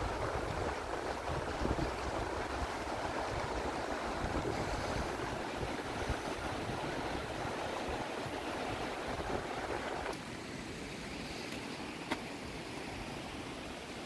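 Steady rush of falling or flowing water, with wind buffeting the microphone as a low, uneven rumble that eases about ten seconds in. A single short click near the end.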